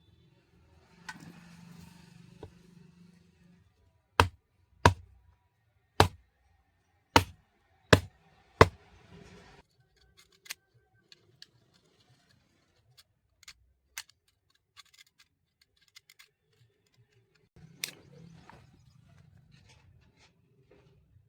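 Handling of a tile cutter's parts during repair: six sharp, loud clicks about a second apart, with soft rustling before them and scattered faint ticks afterwards.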